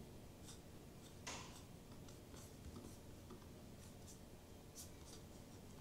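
Near silence: room tone with a few faint, scattered clicks and a soft rustle a little over a second in.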